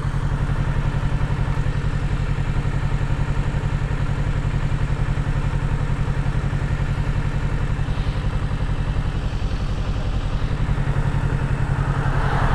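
Kawasaki Ninja 650's parallel-twin engine idling steadily, with an even, fast low pulse and no revving.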